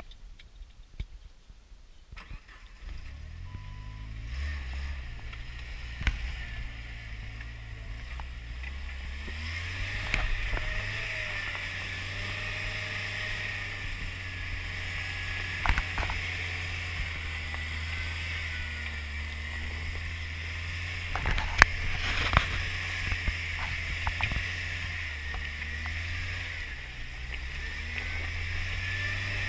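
Jeep Wrangler driving slowly off-road on new mud-terrain tyres: a low, steady engine hum that comes in a couple of seconds in and strengthens a little later, with a hiss of tyre and trail noise and a few sharp knocks as the wheels go over bumps.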